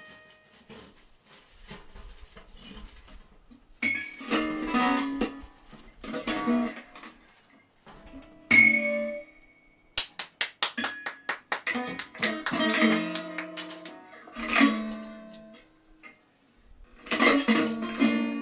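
Electric guitar played solo in broken phrases: bursts of strummed chords and single ringing notes separated by pauses, with a quick run of sharp picked strokes about ten seconds in.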